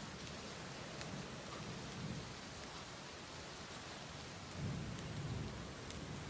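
Steady rainfall with scattered drop ticks, and a low rumble of distant thunder that swells about four and a half seconds in.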